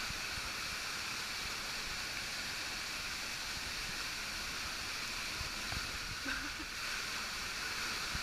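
Steady rush of water from a waterfall and its stream.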